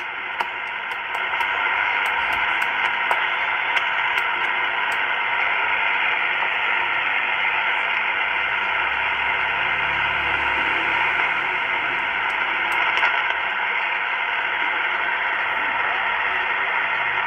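Super Star 2000 CB radio receiving band static through its speaker, a steady hiss as the channel selector is turned down through the channels. Its channel knob clicks repeatedly through the first few seconds and once more near the end.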